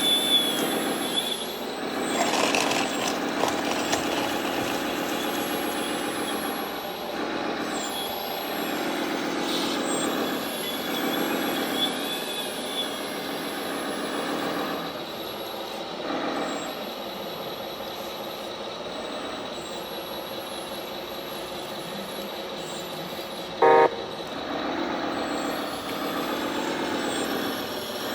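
Radio-controlled model trucks' electronic sound modules playing simulated diesel engine sound through small loudspeakers, the engine note rising and falling. A short, loud horn toot comes near the end.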